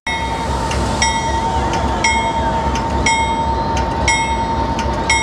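Diesel locomotive's bell clanging about once a second over the low rumble of the engine, with a steady high whine underneath, as the train gets ready to depart.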